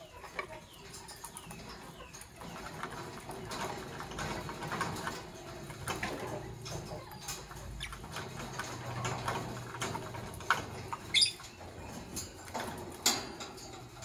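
Lovebirds moving about a cage and nest box, making scratchy clicks and taps, with a few short sharp chirps late on.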